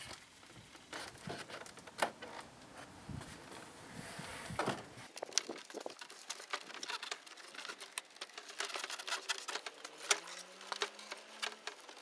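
A plastic interior truck door panel being fitted back onto the door: irregular light clicks, taps and rustles as it is worked into place from the top down.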